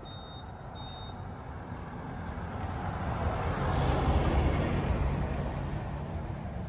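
A motor vehicle passing by, its engine rumble and road noise swelling to a peak about four seconds in and then fading. Two short high beeps sound near the start.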